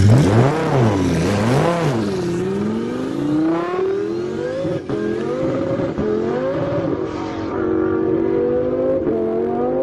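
Twin-turbo Lamborghini Gallardo's V10 launching hard. The engine note swings up and down for the first two seconds, then the car accelerates away through the gears, the pitch climbing and dropping back at each upshift.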